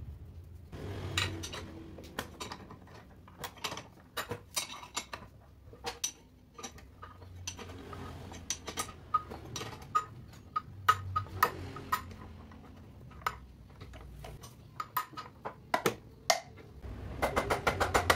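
Metal clinks and clicks of a crankcase splitter tool being fitted and turned on a Kawasaki Ninja RR two-stroke engine's aluminium crankcase as the two halves are split apart. Near the end a fast, even run of ticks sets in.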